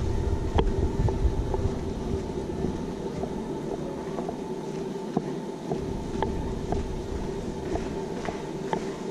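Steady mechanical hum inside a cruise ship, holding two even tones, with a low rumble that eases about three seconds in. Light ticks of walking footsteps recur about every half second.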